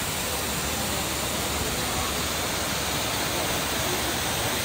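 Steady rush of water pouring down a man-made waterfall, an even hiss with no breaks.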